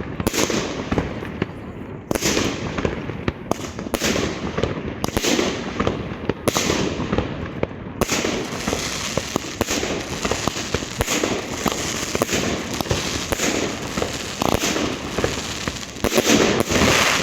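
Consumer fireworks (a salute) going off: a rapid, uneven run of bangs and crackles.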